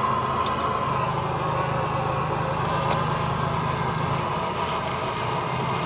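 Steady engine hum and road noise of a truck heard from inside the cab while driving. There are a couple of faint clicks from the phone being handled.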